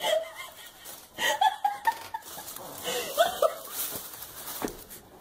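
Domestic cat on a leash meowing a few times in short, rising-and-falling calls.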